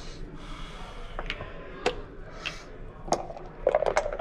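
Plastic backgammon checkers clacking down onto the board as a move is played: a few separate sharp clicks, then a quick run of clacks near the end.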